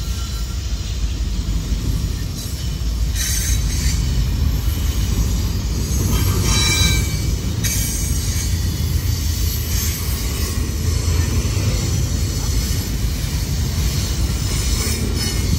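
Double-stack container well cars of a Canadian National freight train rolling past: a steady, loud low rumble of steel wheels on rail, with short high-pitched wheel squeals about three seconds in, around six to seven seconds in, and again near the end.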